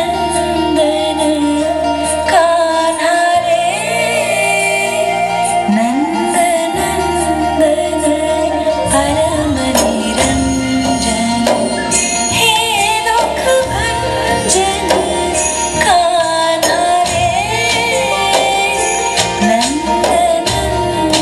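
A song playing: a singer's wavering melody line over steady instrumental backing, with percussion hits throughout.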